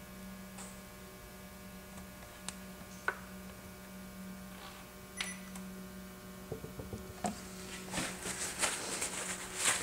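Steady electrical mains hum, with a few faint clicks. Light rustling and small knocks come in near the end.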